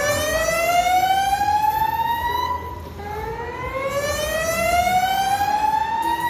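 Fire alarm sounding its whoop evacuation tone: two slow rising sweeps, each climbing for about three seconds, the second starting about three seconds in.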